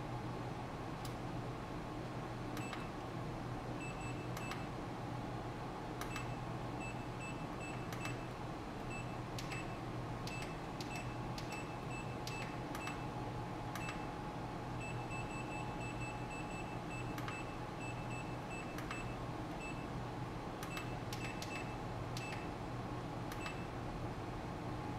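Steady low electrical hum with runs of short, high-pitched electronic beeps coming and going, and scattered light clicks.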